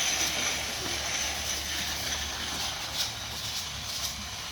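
Liquid mixing machine running steadily: a low electric-motor hum under an even hiss.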